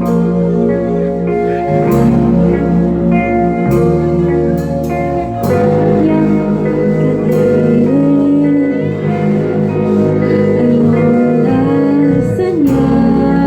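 A band playing a song live, with held bass notes under pitched instruments, regular percussive hits, and a voice singing in places.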